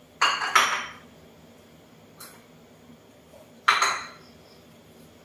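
Dinner plates clinking as they are set down on a kitchen counter: two loud clatters in quick succession right at the start, a faint tap about two seconds in, and another loud clatter near the end.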